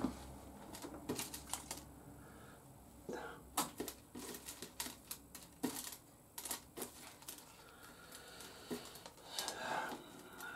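Irregular sharp clicks and taps of small hard parts and hand tools being handled during work on a motorcycle.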